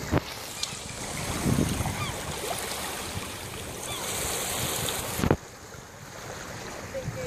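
Small waves lapping and washing at the shoreline, with wind buffeting the microphone. Two sharp knocks, one just after the start and one about five seconds in, where a gust of wind noise cuts off suddenly.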